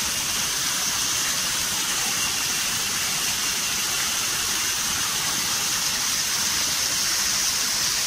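Small waterfall splashing down a rock face into a shallow pool: a steady rush of falling water. A steady high-pitched drone of cicadas runs under it.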